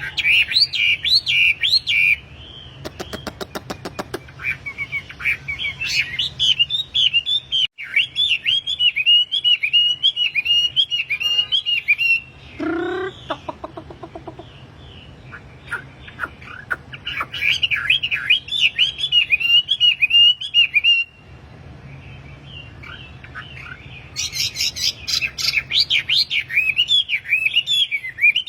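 A wambi songbird singing in full voice: phrases of quick, repeated chattering notes, broken by short pauses. A brief rapid clicking run comes about three seconds in, and a short lower call comes about halfway through.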